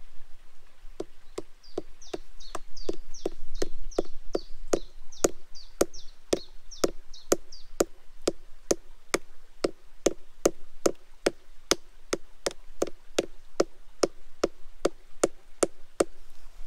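A coin being hammered edgewise into a tree trunk: a steady run of knocks, about three blows a second, that gets louder about two seconds in. The coin keeps refusing to go in.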